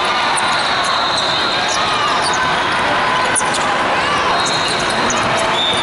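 Basketball bouncing and sneakers squeaking on a hardwood court, over the constant loud din of a big sports hall with other games going on and indistinct voices.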